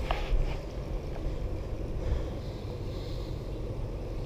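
Steady low rumble of wind buffeting the camera's microphone outdoors, with no clear event standing out.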